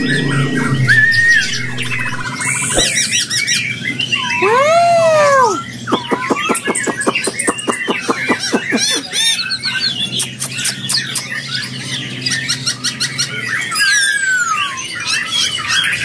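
Several caged songbirds singing and calling at once: overlapping whistles, chirps and squawks, with a fast rattling trill around the middle. A steady low hum runs beneath them and fades out near the end.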